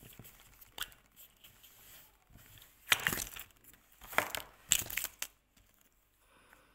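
Plastic packaging crinkling and crackling as a small surprise package is handled and opened, in three loud crackly bursts about three, four and five seconds in, after a few light clicks.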